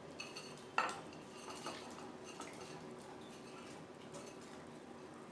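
A metal spoon clinking and scraping against a cooking pan as paneer cubes are stirred into thick chilli sauce. A handful of light clinks, the loudest about a second in.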